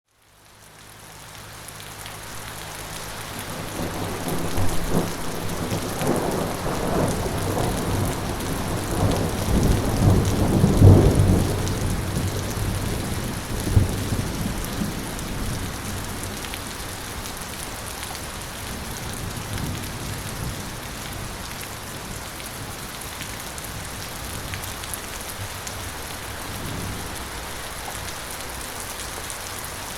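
Steady light rain hissing, with a long rolling thunder rumble that builds from about four seconds in, peaks around eleven seconds, and ends with a sharper crack near fourteen seconds; a fainter rumble comes near the end.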